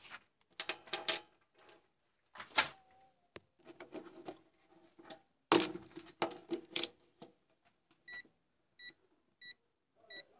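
Electronic components and a handheld digital multimeter rattling and knocking as they are handled, followed by four short beeps from the digital multimeter, evenly spaced about 0.7 s apart, as its dial and buttons are worked.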